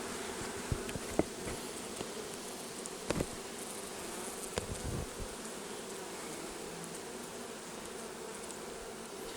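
Honey bees buzzing steadily around an open hive, with a few light clicks and knocks.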